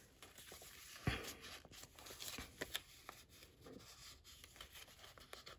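Faint rustling and light scraping of small paper tags being handled and slid under a large curled paper clip on a journal page, with scattered small clicks and a soft tap about a second in.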